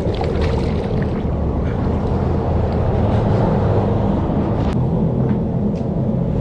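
Steady low rumble of wind buffeting the microphone, with a few faint clicks of handling.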